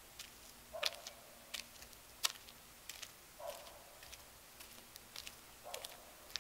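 Footsteps in flip-flop sandals on pavement: sharp, irregular slaps and clicks at about two a second. Three short, falling calls come at intervals of two to three seconds.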